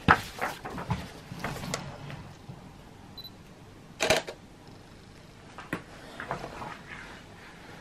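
Canon 90D DSLR being operated by hand: several small clicks from its controls in the first two seconds, a short high beep just after three seconds, then the shutter firing once about four seconds in, the loudest sound, followed by a lighter click.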